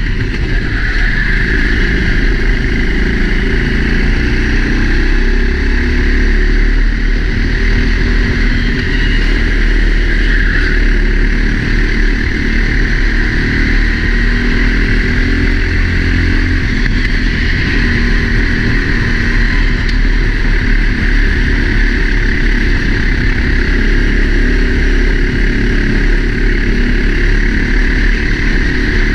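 Four-stroke racing kart engine running hard at speed, heard from a helmet-mounted camera, with steady loud engine noise throughout and only small changes in level.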